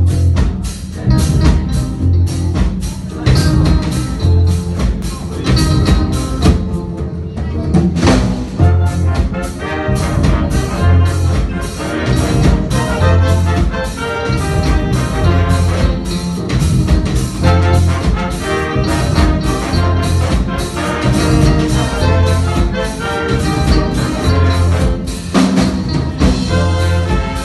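Live band with a horn section of saxophones, trumpet and trombone playing over a steady drum beat and a bass line that repeats about every one and a half to two seconds.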